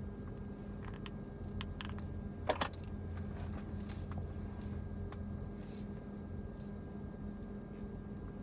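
Steady low hum of a car at rest, heard inside the cabin, with a few light clicks and rustles in the first few seconds, the sharpest about two and a half seconds in.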